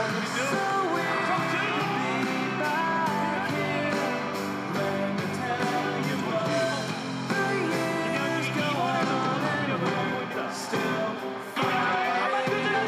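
A pop-rock song with singing and guitar over a steady beat: the soundtrack of a tribute video.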